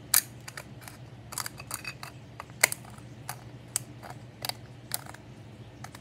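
Homemade slime being pinched and pulled out of a small plastic tub by fingers, making irregular sharp clicks and pops as slime ASMR.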